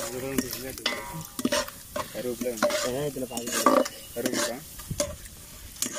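Whole spices sizzling in hot oil in a large aluminium pot, stirred with a metal slotted ladle that scrapes and clicks against the pot again and again.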